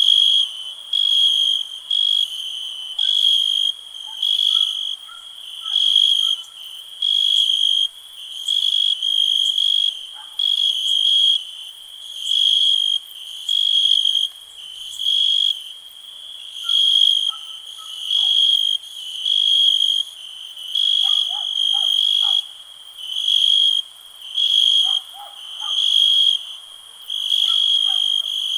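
Cricket chirping steadily, about one chirp a second, each chirp a high, even tone about half a second long.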